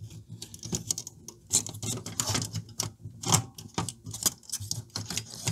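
Plastic front frame and circuit board of a Pioneer A-119 amplifier being handled and pried free by hand: irregular plastic clicks, taps and light scrapes, a few of them louder.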